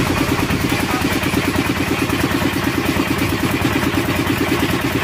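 Machinery running steadily with a rapid, even throb.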